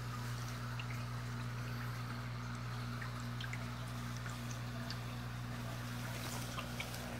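Aquarium tank heard from underwater: rising streams of air bubbles trickling and popping in small scattered ticks over a steady low electrical hum.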